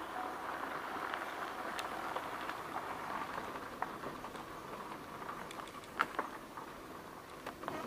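Dry grass and twigs rustling and crackling as a tiger walks through the undergrowth, with scattered small snaps and a sharper one about six seconds in.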